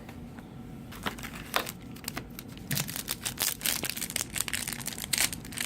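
Crinkling of a foil trading-card pack wrapper being handled and opened: a few scattered crackles at first, turning into dense crinkling from about halfway.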